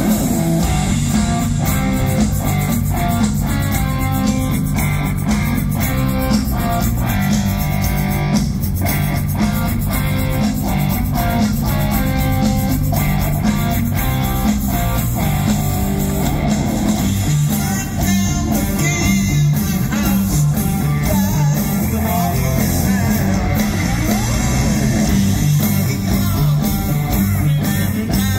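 Rock band playing live at full volume: electric guitar over bass and drums in a steady rock groove.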